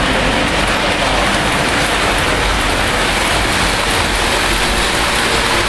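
Lionel O gauge model trains running on the layout's track, a steady even rumble.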